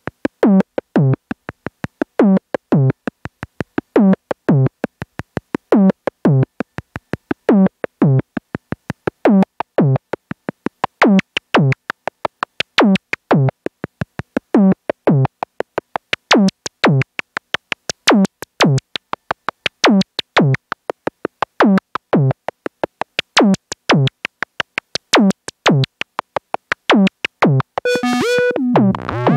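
Korg Volca synthesizers playing a looping electronic pattern: the Volca Kick's synth kick drum, each hit a quick downward pitch sweep, repeats about once a second over rapid short ticking notes. Near the end a held synth tone comes in on top.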